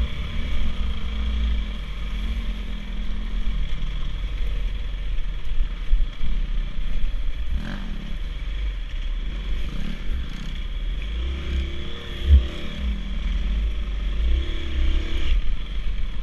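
Dirt bike engine running at low, varying throttle on a slow trail ride, its pitch rising and falling, with wind buffeting the microphone. A sharp knock stands out about twelve seconds in.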